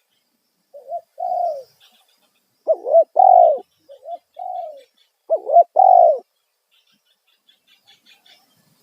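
Spotted dove cooing: four phrases, each a couple of short notes and then a longer falling coo, loud phrases alternating with softer ones, ending about six seconds in; faint high chirps follow. It is the loud 'kuk satu' call used to lure wild spotted doves.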